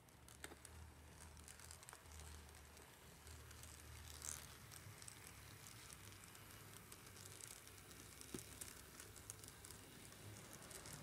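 Faint low hum of a three-rail O-gauge model electric locomotive running past, with scattered light clicks and crackles.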